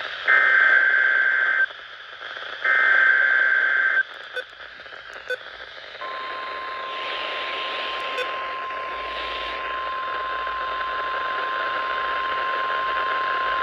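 NOAA Weather Radio test alert heard through a radio receiver with static hiss: the last two bursts of the SAME digital header, each about a second and a half long and a second apart, then after about two seconds of hiss the steady 1050 Hz warning alarm tone starts about six seconds in and holds.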